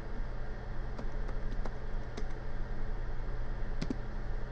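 Keystrokes on a laptop keyboard: a few scattered, separate key clicks as a short password is typed and confirmed, over a steady low hum.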